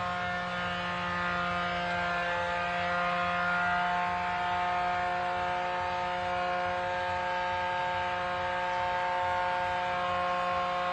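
Electronic fish-calling speaker giving off a steady, unchanging buzzing hum.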